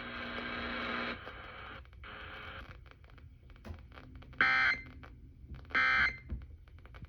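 Emergency Alert System end-of-message data bursts from an FM radio's speaker: short harsh digital screeches, two of them about a second and a half apart, with a third starting right at the end, closing out a relayed NOAA severe thunderstorm warning. A steady buzzing tone comes first, for about a second.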